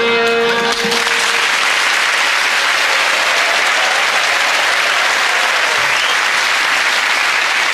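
Studio audience applauding steadily, after a short burst of music that dies away about a second in.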